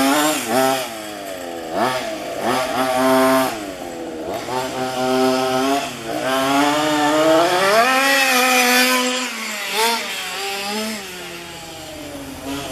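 The small two-stroke petrol engine of a 1:5 scale FG radio-controlled car, revving up and falling back repeatedly as the throttle is worked, with its longest high-pitched run about two-thirds of the way through.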